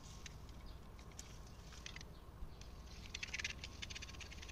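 Faint rustling and crackling from hands handling a hibiscus branch while a small knife works at its stem, with a quick run of crackles about three seconds in.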